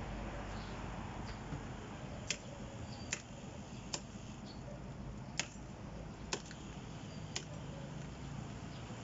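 Machete chopping at a moringa tree's thin trunk: six short, sharp strikes of the blade on the wood, roughly a second apart and not quite evenly spaced.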